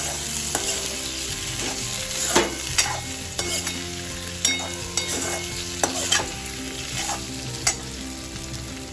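Diced boiled potatoes frying and sizzling in hot oil in a metal kadhai while a steel spoon stirs them, knocking and scraping against the pan several times.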